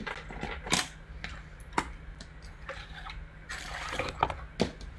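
Irregular light clicks, taps and rustles of hands handling a paper card and satin ribbon on a tabletop, with a few sharper taps.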